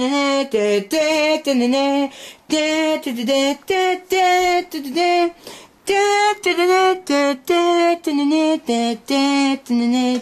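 A high-pitched voice singing a tune without accompaniment, in short separate syllables several a second, with brief pauses about two and five seconds in.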